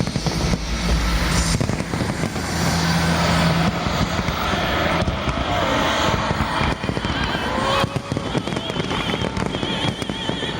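Fireworks going off in a dense, continuous run of bangs and crackles.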